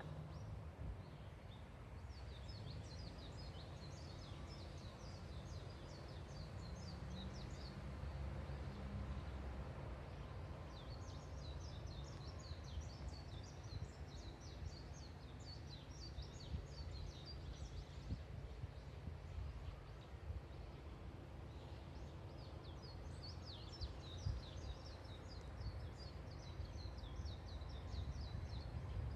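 A small songbird singing three long bouts of rapid, high twittering notes, each lasting several seconds with pauses between, over a steady low background rumble.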